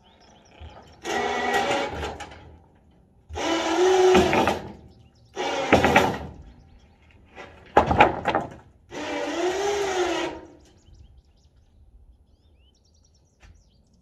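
Electric hydraulic pump motor of a pickup's tilt bed, run in five short bursts of about a second each that start and stop sharply, with a strained whine whose pitch bends during the bursts as the deck with a lawn tractor on it is lowered.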